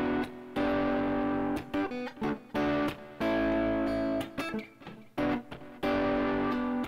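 Electric guitar playing three-note triad chords on the fourth, third and second strings through a B minor, G, D, A progression. About six chords are struck one after another, each ringing for up to a second before being cut off.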